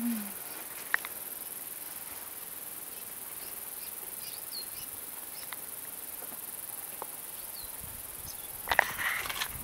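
Steady high-pitched chirring of insects, with a few faint short bird chirps. A brief cluster of crackling clicks comes near the end and is the loudest sound.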